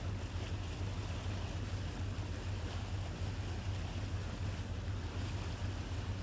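Water splashing and dripping as a lobster hoop net is hauled up by its line over the side of a boat, over a steady low hum.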